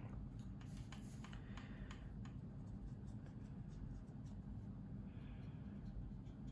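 Faint scratchy strokes and light ticks of a small paintbrush working oil paint on a plastic model wing, over a steady low hum.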